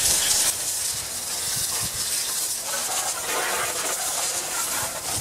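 Garden hose spray nozzle hissing steadily as a jet of water rinses degreaser off a garden tractor's engine, a little louder in the first moment.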